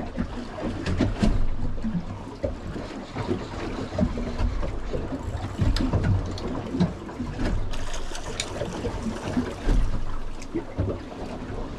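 Water lapping and slapping irregularly against the hull of a small drifting boat, with scattered light knocks and low rumble.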